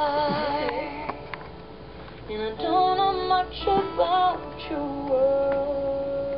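A woman singing long, wavering notes over quiet music.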